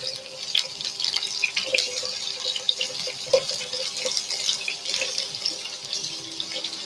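Prawns frying in hot oil with chopped garlic in a pan, a steady sizzle with frequent small crackles and pops.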